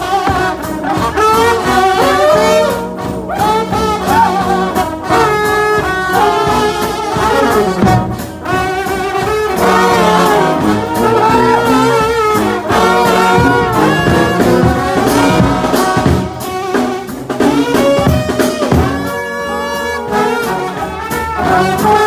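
Trombone shout band playing a gospel hymn: several trombones together in a loud, dense ensemble, the notes sliding and bending.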